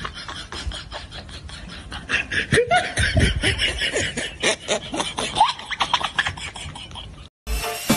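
Laughter over a rapid run of clicks, loudest in the middle, cutting out abruptly near the end.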